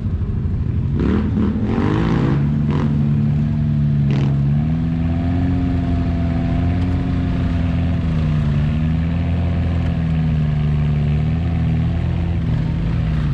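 Quad bike (ATV) engine held on steady throttle under load as it crawls up out of a sand pit, its pitch wavering slightly, with a short rising rev about a second in.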